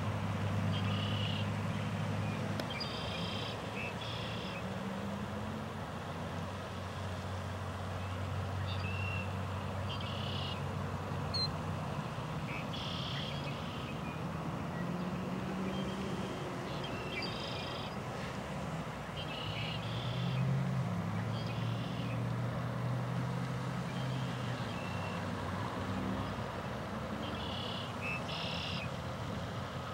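Short, high bird calls, often in pairs or small groups, repeating every second or two. Underneath is a steady low rumble of vehicle traffic that slowly rises and falls in pitch.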